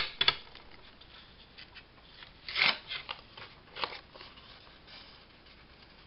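Paper being handled: short rustles and light taps of printed cardstock and a brown paper envelope, with a sharp tap at the start and a brief crinkle of paper about two and a half seconds in.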